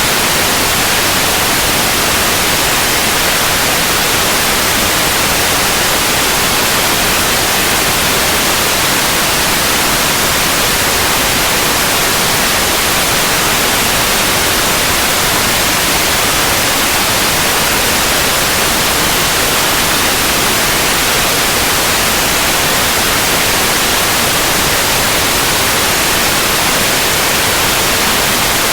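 Steady, continuous white noise: an even hiss with no changes or breaks.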